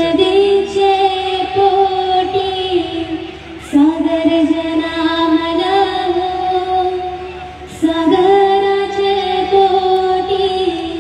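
A female voice sings an Agri-Koli dhavala, the traditional wedding song, in long drawn-out held notes. It comes in three phrases of about four seconds each, with short breaths between them.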